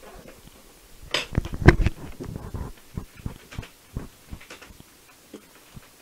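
A run of light clicks and knocks, loudest and closest together about one to two seconds in, then thinning out to scattered small clicks.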